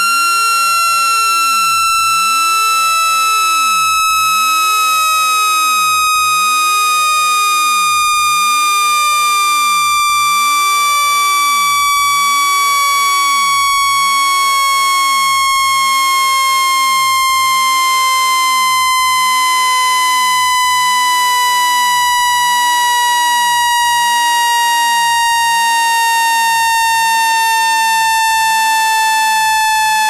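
Loud, buzzy electronic tone with overtones, held steady while it glides slowly down in pitch. It is a water-eject tone, played at full volume to vibrate water out of a phone's charging port and speaker.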